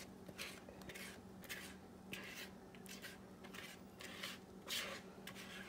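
Spatula scraping sticky pecan pie filling from the inside of a plastic mixing bowl into the pie crust: a series of soft, quick scrapes, two or three a second, over a faint steady hum.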